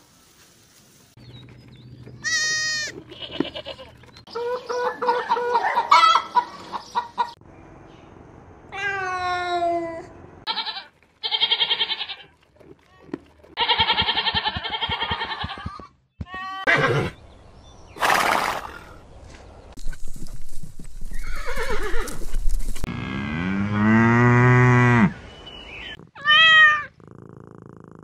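Goats and sheep bleating: a run of separate calls one after another with short gaps, many of them wavering. A longer, lower call comes near the end.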